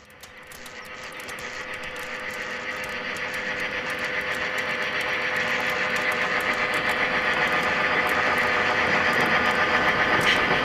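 A freight train running, growing steadily louder as it approaches: a steady hum over a noisy rumble, with fine clicking from the wheels.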